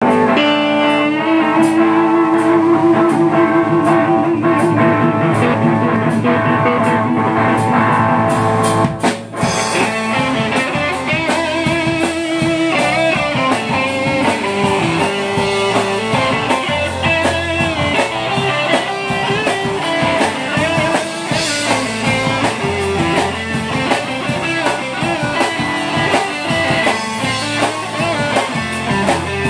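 A live rock band playing, electric guitars over a drum kit, with a brief break about nine seconds in.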